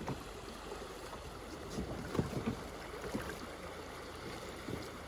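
Shallow river water running over a stony bed, with a few brief knocks and splashes from canoe paddles, the loudest about two seconds in.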